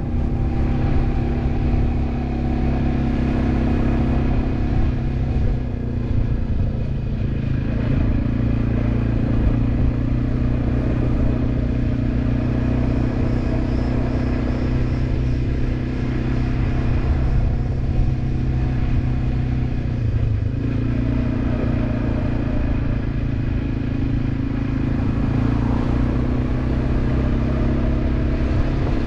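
Quad bike engine running steadily while riding, its pitch drifting slightly down and up with speed changes, over a heavy low rumble.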